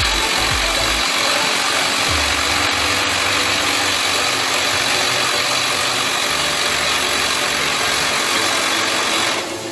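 Resemin Raptor 55 long-hole drilling rig at work, boring with a 64 mm bit: a loud, steady mechanical din that drops off sharply just before the end.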